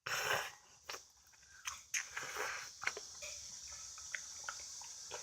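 Instant ramen noodles being eaten close to the microphone: a short rushing sound at the start, then quiet chewing with scattered small clicks.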